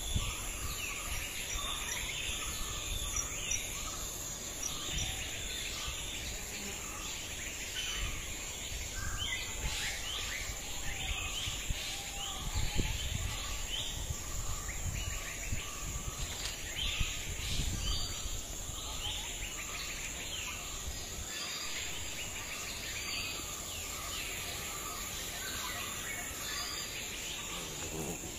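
Outdoor rural ambience: birds chirping and calling, over a steady high-pitched insect drone, with low wind rumble on the microphone. A few light knocks stand out, the loudest about 13 seconds in.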